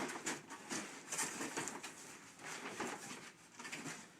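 Packaging rustling and being handled as an item is worked out of a shipping box, an uneven run of scraping and crinkling.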